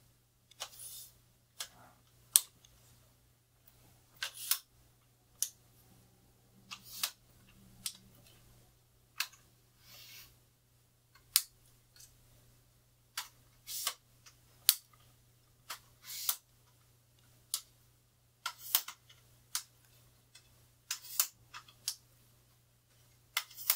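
Aluminium tripod legs being extended section by section: a string of sharp clicks and knocks at irregular intervals, roughly one a second, as the leg locks are worked and the tubes slide out.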